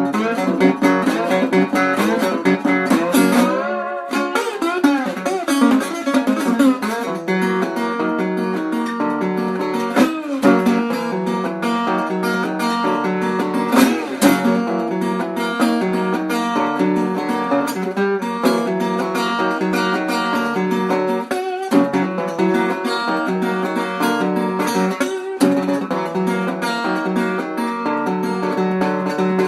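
Blues music played on plucked acoustic guitar, with sliding notes in the first few seconds and a brief break about four seconds in, then a steady run of picked notes.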